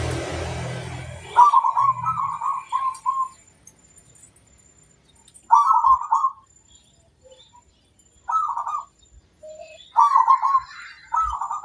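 Zebra dove (perkutut) singing its rhythmic cooing song: quick runs of rolling notes in several phrases separated by pauses. At the start a loud rushing noise fades away.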